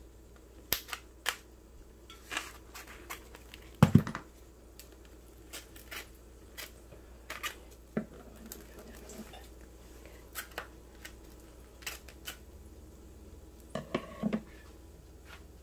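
Kitchen scissors snipping and plastic film crinkling and tearing as a wrapped tray of meat is cut open: scattered short clicks and crackles, the loudest a sharp knock about four seconds in.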